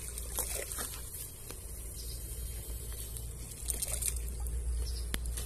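Scattered soft crackles and rustles with a few sharp ticks over a steady low hum, as an electrofishing rig's bamboo poles are worked through weedy ditch water.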